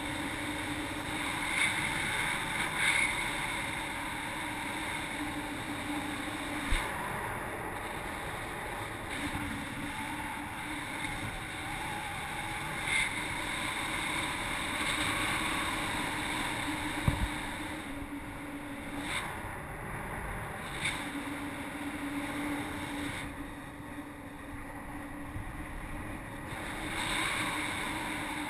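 Steady rush of wind across the microphone of a paraglider pilot's action camera in flight, with a faint low steady hum that comes and goes.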